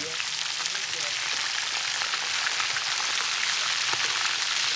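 Barracuda steaks frying in hot oil in a cast-iron skillet: a steady sizzle full of fine crackles.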